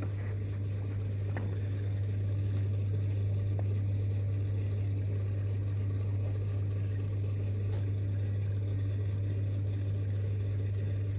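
Aquarium pump humming steadily at a low pitch.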